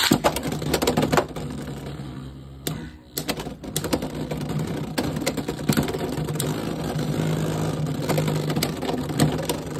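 Two Beyblade X spinning tops, Helm Knight 3-80 Needle and a green Dronzer, spinning and clashing in a plastic stadium: a dense run of rapid clacks and rattles over a steady whirring hum, with a brief lull about three seconds in.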